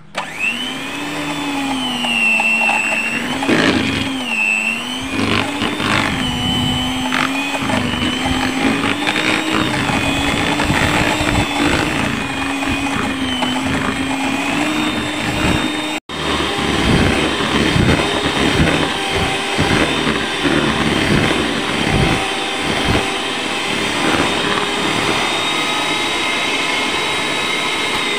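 Electric hand mixer running on its lowest speed, its motor whining steadily while the metal beaters churn a thick butter mixture and knock against the plastic bowl. The motor's pitch wavers at first as the beaters work through the lumps, then holds steady; the sound cuts out for an instant about halfway through.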